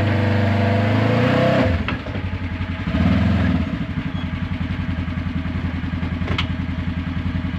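ATV engine running steadily, then dropping to idle about two seconds in, with a brief rev about a second later, then idling with an even pulse.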